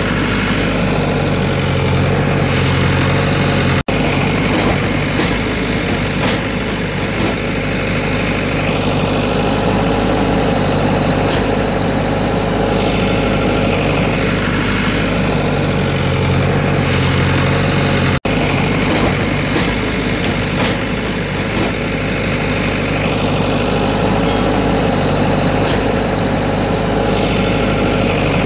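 Heavy-machine engine sound idling steadily, a looped recording standing in for a JCB backhoe loader. It cuts out for an instant twice, about 14 seconds apart, where the loop restarts.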